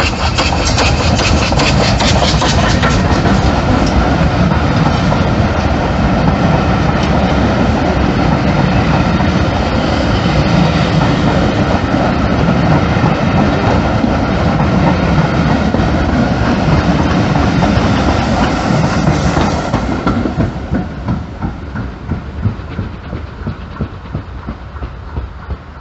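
GWR 42xx 2-8-0 tank locomotive passing close beneath, followed by a long rake of coaches rumbling past with wheels clicking over the rail joints. The sound drops away about twenty seconds in as the last coach goes by, leaving a fainter rumble with scattered clicks.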